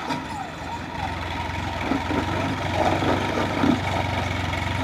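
Tractor diesel engine running under load as it tows a loaded sugar cane trolley, a steady low drone that grows louder about a second in as the tractor comes closer.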